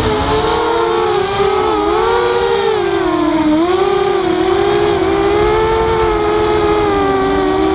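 Walkera F210 quadcopter's brushless motors and propellers whining in flight, two close pitches wavering up and down together as the throttle shifts, over a rush of air noise.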